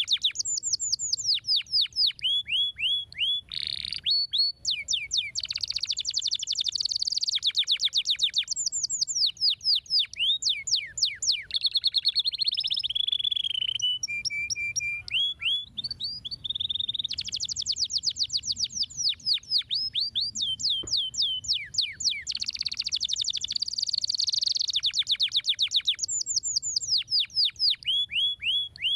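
Domestic canary singing a long, unbroken song of fast trills. It moves through runs of quickly repeated falling whistled notes, changing to a new phrase every second or two, with a short held steady note about halfway through.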